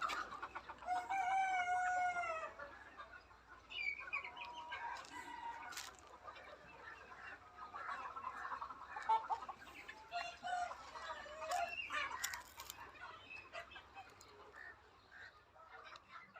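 Chickens clucking and calling in a flock, with a rooster crowing once, a long call in the first few seconds.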